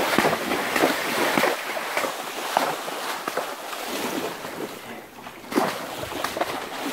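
Horses' hooves splashing and sloshing as they wade through a shallow stream, in irregular strokes over the rush of the water.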